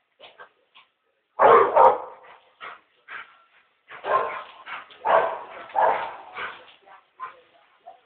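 American Staffordshire terrier barking and yipping in short bursts, loudest about one and a half seconds in and again in a run of barks from about four to six and a half seconds.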